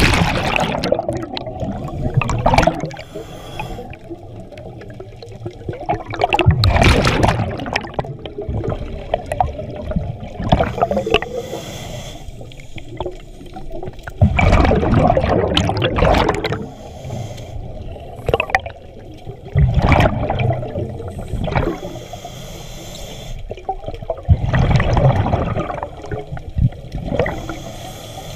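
Scuba regulator breathing underwater: bursts of exhaled bubbles rushing past the camera every four to five seconds, with quieter stretches between.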